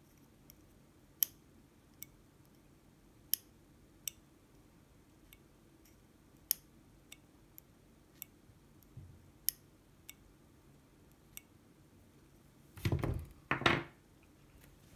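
Sparse, small, sharp metal clicks of a lock-pick hook working inside a pin-tumbler lock, roughly one a second, then two louder knocks about 13 seconds in.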